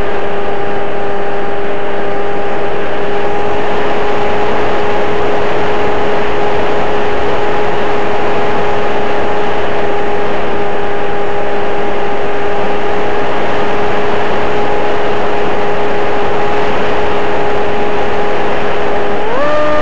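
Electric motor and propeller of a Yagi RC flying wing, heard from its onboard camera: a steady whine over loud wind rush. Near the end the pitch rises as the throttle is opened.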